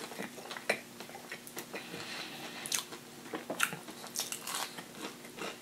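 Close-miked chewing of a mouthful of spicy crispy chicken sandwich: irregular wet smacks and short crunchy clicks from the mouth.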